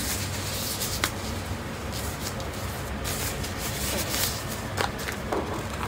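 Thin disposable plastic gloves rustling and crinkling as they are pulled onto the hands, with a few sharp crackles.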